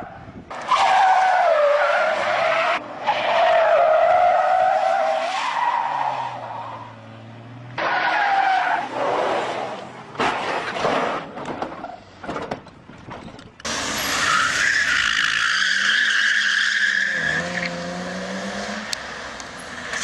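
Car tyres squealing as vehicles spin and drift on pavement, in several segments that start and stop abruptly, with rough knocks and scraping in the middle and an engine revving under a long steady squeal near the end.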